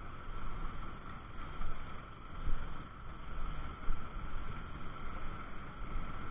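City traffic noise and wind rumble picked up by a bicycle-mounted camera's microphone while riding: a steady noisy rumble with uneven low thumps of buffeting.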